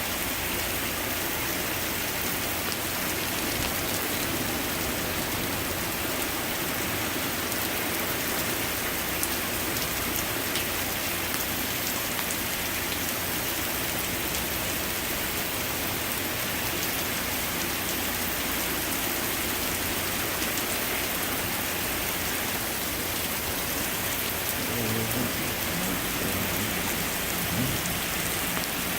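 Heavy rain pouring steadily onto surfaces, a dense even hiss of drops with fine individual patters throughout.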